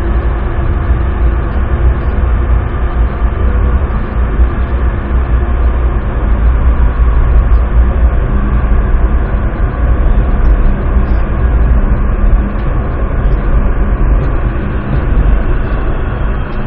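Driverless metro train running through a tunnel, heard from inside the car: a loud, steady low rumble with faint steady hums above it.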